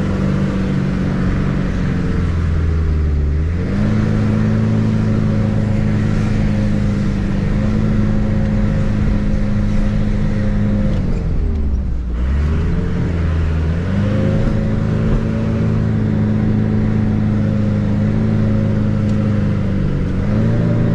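Camper van engine working hard in low gear up a steep dirt climb, heard from inside the cabin, with the driver slipping the clutch at half-engagement. The revs sag about three seconds in and again about twelve seconds in, then pick back up.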